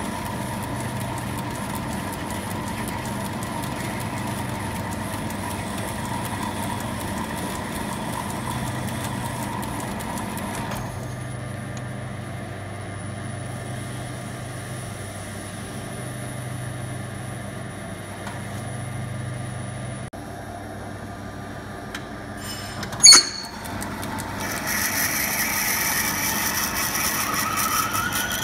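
Metal lathe running while parting off a brass spacer with a parting tool: a steady motor hum with cutting noise that quietens about 11 seconds in. A single sharp clack comes about 23 seconds in, then a louder high whine that rises in pitch near the end.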